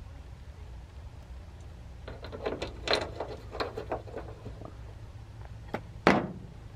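Short clicks and taps of a hood-lift ball-stud bracket and its bolt being handled and fitted against a steel hood's underside: a cluster of them from about two seconds in, then one louder knock near the end, over a low steady rumble.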